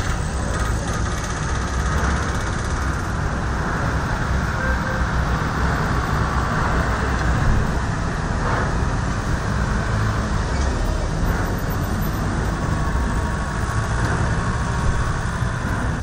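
Steady din of road traffic and a waiting crowd, with indistinct voices mixed in.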